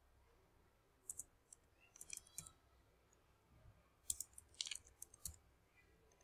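Faint computer keyboard keystrokes in several short runs of quick clicks, typing a short name.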